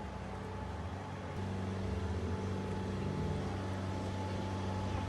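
An engine running steadily with a low hum, getting louder about a second and a half in.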